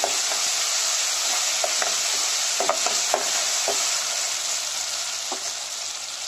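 Sliced onions and ginger-garlic paste sizzling in hot oil in an aluminium pressure cooker, stirred with a spoon that scrapes and taps against the pot a few times. The stirring stops partway through, and the sizzle carries on a little quieter.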